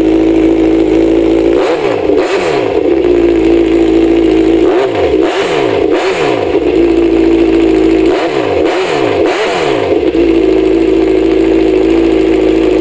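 Kawasaki Z1000's inline-four engine breathing through an aftermarket full 4-into-1 exhaust, idling steadily and revved in three bursts of quick throttle blips about three seconds apart, each dropping back to idle. The sound cuts off near the end.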